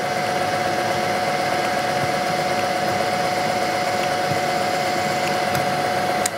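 Bridgeport milling machine's spindle running at speed with a steady whine. It is switched off just before the end, and the whine falls in pitch as the spindle spins down.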